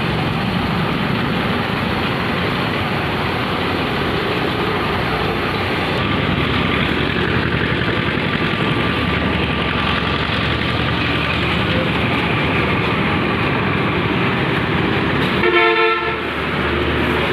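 Steady road and engine noise, with a vehicle horn honking once for about a second near the end.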